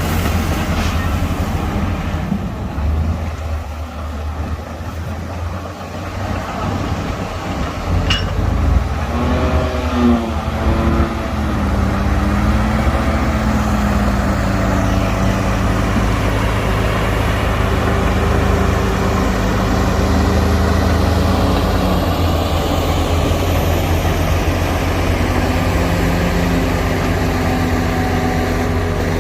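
Heavy diesel earthmoving machinery running: a bulldozer and dump trucks. About twelve seconds in the engine noise grows louder and holds steady.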